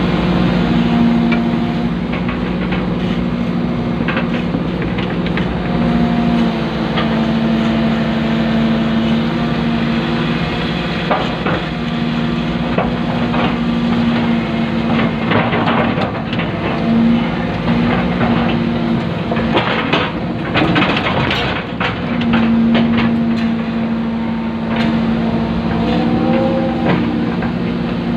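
Hydraulic excavator running, heard from inside the cab: a steady engine drone with a pitched hum that comes and goes as the boom and bucket are worked. Scattered clanks and knocks, most of them in the middle, as the bucket handles and pours wet concrete.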